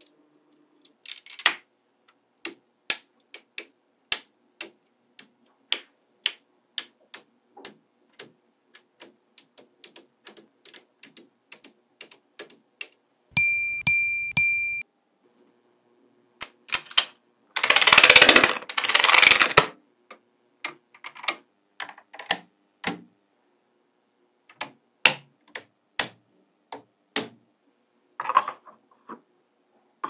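Small magnetic balls clicking as they snap into place, a string of sharp separate clicks, one to two a second. About halfway through there is a short steady beeping tone, and a few seconds later a loud rough rustling scrape lasting about two seconds.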